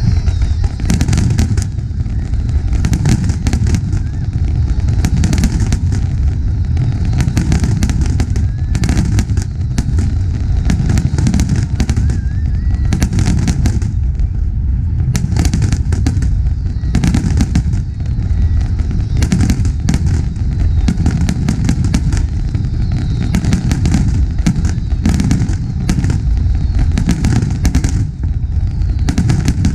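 Fireworks display going off in a dense, continuous barrage: many aerial shell bursts and crackles overlapping one after another over a constant low rumble.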